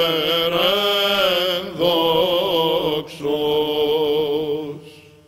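Male cantors chanting Greek Orthodox Byzantine chant: a melismatic, wavering melody over a steady held drone (the ison). There are two short breaks for breath, and the phrase dies away near the end.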